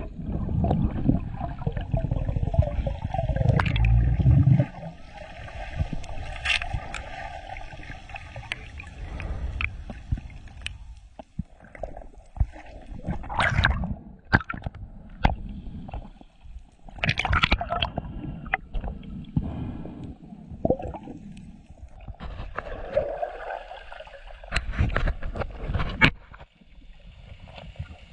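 Water moving around an underwater camera: muffled gurgling and sloshing, heavy and low for the first few seconds, then irregular bubbly bursts and clicks.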